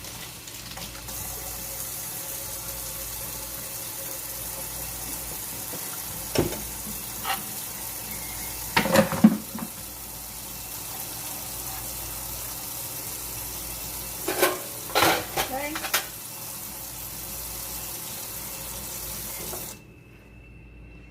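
Kitchen tap running steadily into a sink, with a few clinks and clatters from handling dishes or pans. The water shuts off suddenly about a second before the end.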